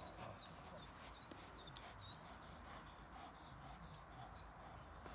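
Quiet outdoor ambience: faint, short high chirps repeating every half second or so, and a single sharp click about two seconds in.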